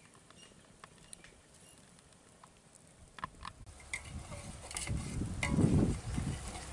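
Metal ladle clinking and scraping against an aluminium cooking pot as a fish curry is stirred, in the second half, with wind rumbling on the microphone at the same time. The first few seconds are near silence with a few faint ticks.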